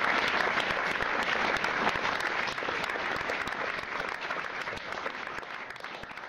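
Audience applause, many people clapping, gradually fading out.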